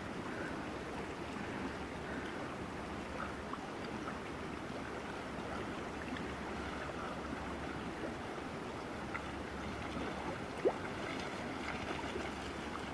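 Steady rush and lapping of river water, with one brief sharp click about ten and a half seconds in.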